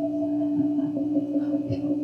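Live noise music: two steady droning tones, a lower one and one about an octave above it, held throughout, with short warbling blips over them.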